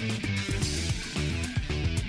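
Instrumental music with guitar over low bass notes, playing without a voice.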